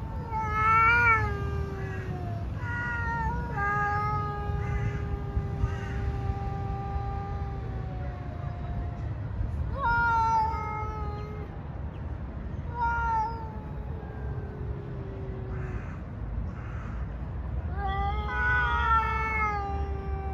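Two cats in a face-off, yowling long, drawn-out, wavering threat calls at each other: a territorial standoff before a fight. There are five or so calls with short pauses between them, one held for several seconds, and the loudest come about a second in and near the end.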